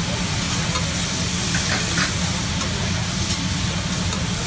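Vegetables sizzling and frying on a hot steel teppanyaki griddle, stirred with a metal spatula and fork that clink and scrape on the plate a few times. A steady low hum runs underneath.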